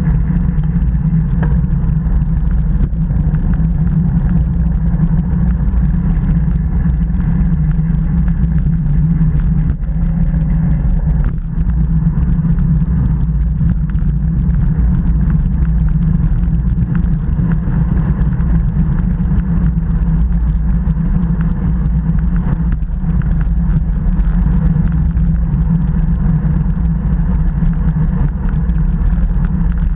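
Wind rushing over an action camera's microphone on a road bike at race speed, about 35 km/h, heard as a loud, steady low rumble.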